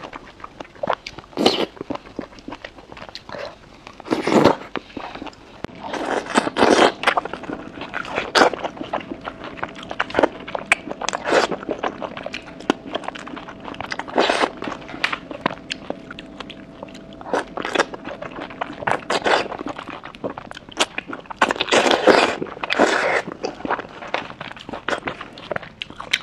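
Close-miked eating of oysters off skewers: biting and chewing, made up of many short wet smacks and clicks, with louder flurries here and there.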